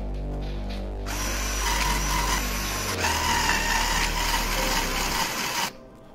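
Cordless power screwdriver running, its motor whining as it drives the small screws of a motor driver board's screw terminals. It starts about a second in, shifts slightly in pitch about three seconds in, and stops shortly before the end.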